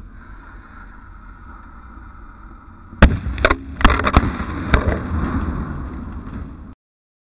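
Explosive charges blowing up a Vizio LCD television. A loud bang about three seconds in is followed by about five more sharp bangs and crackling over the next two seconds. The sound cuts off suddenly near the end.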